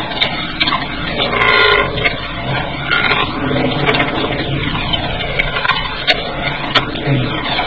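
Car driving, heard from inside: steady engine and road noise with scattered sharp clicks.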